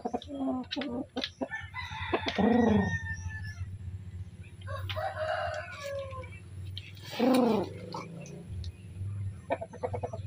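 Rooster crowing twice, about two seconds in and again about seven seconds in, each call falling in pitch at its end, with a shorter call between them. A few sharp taps come in the first second or so.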